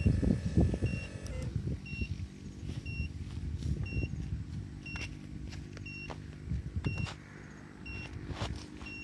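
RC hydraulic excavator's pump motor whining, then cutting off with a short falling tail about a second and a half in. After that a short high electronic beep repeats about once a second over a low steady hum, with a few scuffs and knocks.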